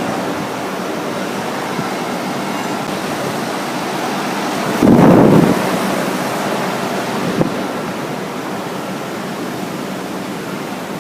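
Large HVAC condenser units running, their fans giving a steady rushing airflow with a faint hum, swelling louder for under a second about five seconds in.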